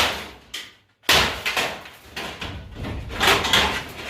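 A hammer striking and breaking apart a toaster oven: a sharp blow at the start and a smaller knock, then a loud blow about a second in followed by clattering and scraping of loose metal and plastic parts, with more knocks near the end.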